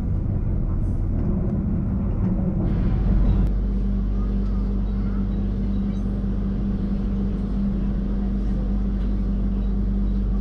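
Moving passenger-train coach: steady running rumble with a constant low hum. About three seconds in it changes abruptly to this steadier cabin sound.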